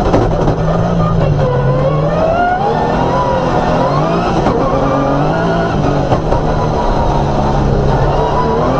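Off-road rally car engine running hard under load, its pitch climbing and dropping back several times as the driver accelerates and shifts or lifts.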